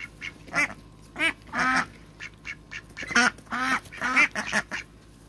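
Domestic ducks quacking: several short calls in the first two seconds, a pause, then a quicker run of quacks from about three seconds in.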